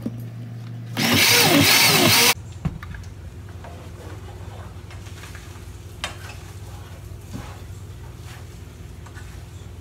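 Countertop blender running for about a second and a half as it purées tomato, onion, salt and water, then switching off abruptly.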